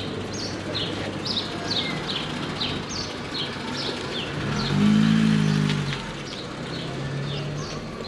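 Small birds chirping over and over, two or three short falling chirps a second. A car passes on the street, its engine loudest about five seconds in.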